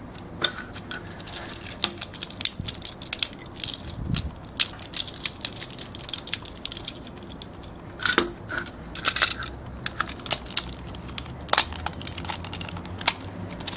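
Small plastic transforming toy train being handled and fitted together: a string of light plastic clicks and snaps as its parts are moved, coming thickest a little past halfway.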